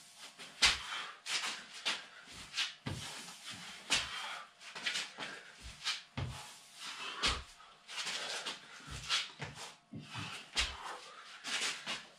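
Burpees on a concrete floor: hands and trainers landing and scuffing, with dull thuds from the jumps, about one a second and unevenly spaced.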